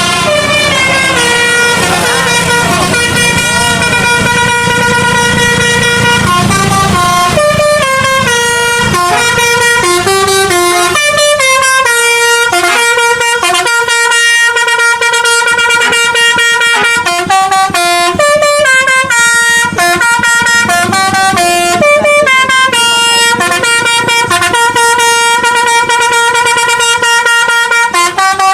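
Indonesian bus 'telolet' multi-note air horn of the Basuri kind playing a tune, its notes stepping quickly from pitch to pitch between held tones. A low rumble sits underneath for roughly the first seven seconds.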